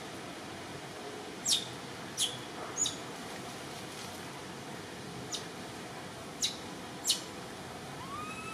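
Short, sharp, high-pitched bird chirps, each falling steeply in pitch, about six of them at irregular intervals over a steady hiss; near the end a softer arched call begins.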